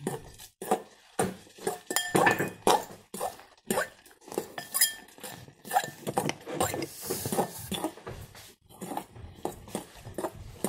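Metal fork stirring a thick mix of mashed banana, egg and porridge oats in a glass mixing bowl, clinking and scraping against the glass in irregular strokes.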